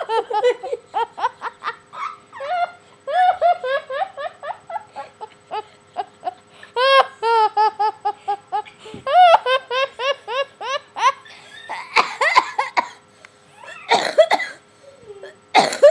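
Children laughing hard, in long runs of quick high-pitched giggles with louder belly laughs now and then.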